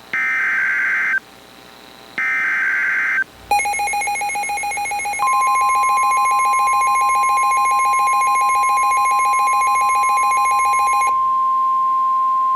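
Emergency Alert System signals: two screeching SAME digital header bursts of about a second each, then a rapidly pulsing, ringing alert tone from about three and a half seconds in. About five seconds in, the steady single-pitch 1050 Hz NOAA Weather Radio warning tone joins it and runs on alone after the pulsing stops near the end.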